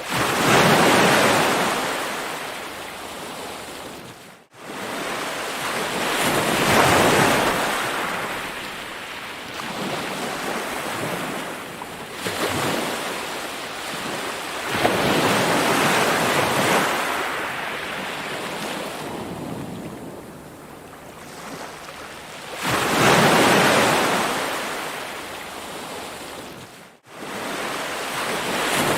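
Ocean waves breaking and washing up the shore, each surge swelling and fading about every seven to eight seconds. The sound drops out for an instant twice.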